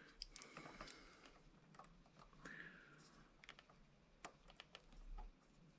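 Faint, scattered small clicks and taps, near silence: the small clamps of a helping-hands rig being moved into position around a wire terminal.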